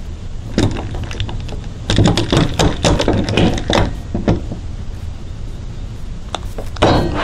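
Wooden 2x4 frame and a metal clamp being handled on a plywood workbench: scattered knocks and clicks, with a quick irregular run of them about two seconds in, over a steady low hum.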